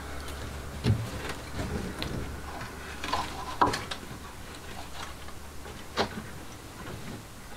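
Handling a heavy sheep-wool blanket and hanging it on a wooden board: soft rustling, with a few sharp knocks and taps, the loudest about a second in, near the middle and about six seconds in.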